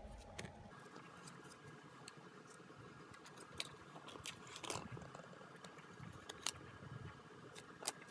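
Faint clicks and rustles of small items and packaging being handled, over a faint steady high hum.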